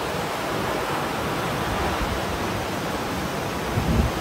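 Steady rush of white water from a fast mountain river and a tall waterfall. A brief low buffet of wind on the microphone comes near the end.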